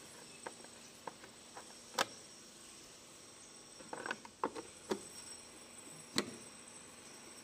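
Plastic engine-bay fuse box cover of a Hyundai Creta being handled and pressed shut: scattered light plastic clicks and knocks, with sharper clicks about two seconds in and near the end, and a quick cluster of knocks in the middle.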